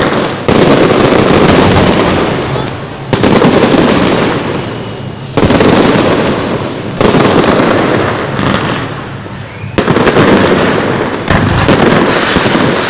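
Aerial fireworks shells bursting overhead one after another, about six in all. Each loud bang is followed by a dense crackle that fades over a second or two.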